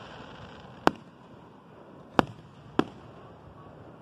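Aerial fireworks going off: three sharp bangs, one about a second in and two close together a little after two seconds.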